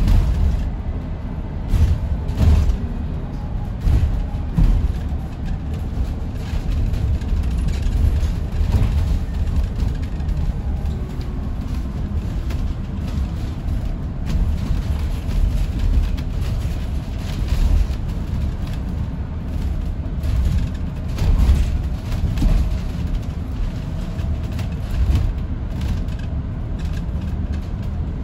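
Inside the lower deck of an Enviro400EV battery-electric double-decker bus on the move: a steady low road rumble with irregular knocks and bumps.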